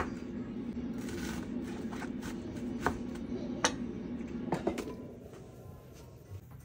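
Kitchen cooking sounds: a steady appliance hum under a few sharp clicks and clinks of utensils. The hum drops away about five seconds in.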